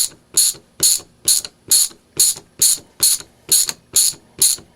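Vintage ratcheting screwdriver, its head flipped over to reverse the ratchet, clicking in short rattling bursts about twice a second, once on each return swing of the handle.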